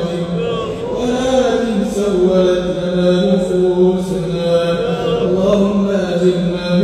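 A man's voice chanting a Qur'anic-style supplication (dua) in a slow melodic line, holding long notes that bend gently in pitch.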